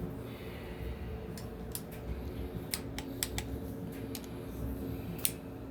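Irregular light metallic clicks and taps as a camshaft is worked into the cam bearings of a Ford 351 Windsor block, over a faint steady hum.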